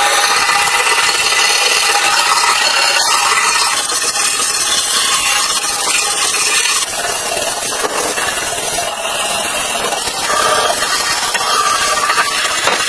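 Steady, harsh abrasive rubbing, as of a tool working a surface, continuing with small dips in level.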